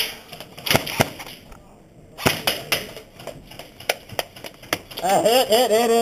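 Airsoft guns firing single shots, about nine sharp snaps at irregular intervals. From about five seconds in, a person lets out a long, wavering yell.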